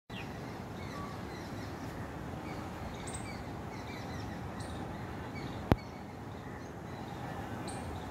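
Steady ambient noise with scattered short bird chirps, and one sharp click about five and a half seconds in.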